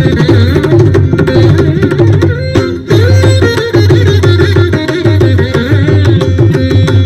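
Carnatic-style instrumental music: a plucked veena melody over steady hand-drum strokes, breaking off briefly about three seconds in and then resuming.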